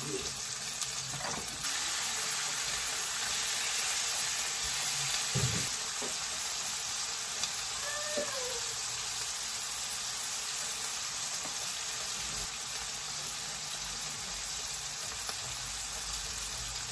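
Pesto-coated chicken breasts frying in a stainless steel skillet, a steady sizzle.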